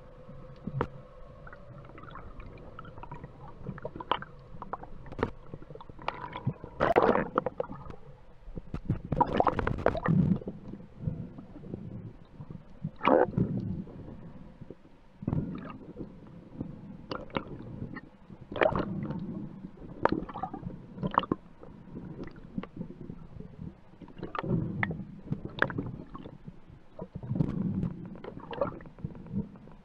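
Underwater sound from a spearfisher's camera: irregular clicks and knocks of the speargun and gear being handled, with a few longer bursts of gurgling water.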